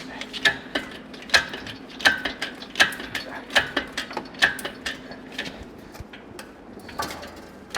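Repeated sharp metallic ratcheting clicks from the engine-lifting rig as the hanging engine is adjusted, about one click or pair of clicks every 0.7 s for the first five seconds, then one more near the end, over a steady low hum.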